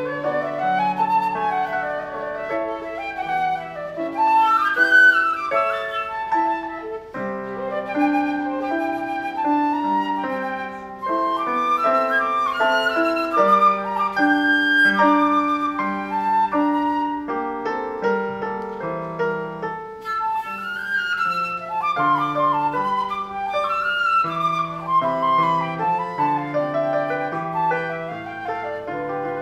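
Flute solo with piano accompaniment: the flute plays a moving melody over held lower notes, with short breaks about seven and eleven seconds in.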